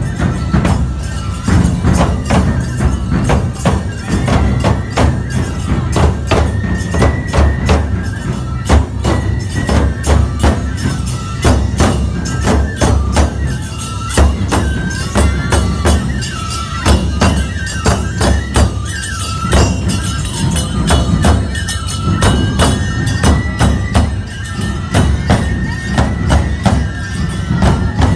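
Nebuta bayashi festival music played live: taiko drums and tebiragane hand cymbals striking a steady beat under a fue bamboo-flute melody.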